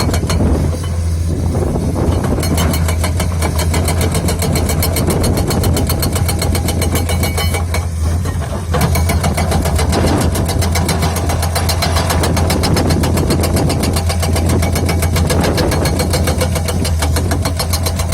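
Komatsu 210 excavator's engine running with its JTH 210 hydraulic breaker hammering in rapid, evenly spaced blows. The hammering pauses briefly about a second in and again around eight seconds in.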